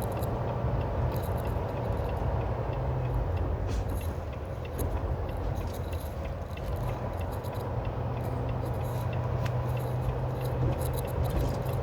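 Semi truck running at highway speed, heard from inside the cab: a steady low engine and road drone, with light rattles and clicks from loose items in the cab.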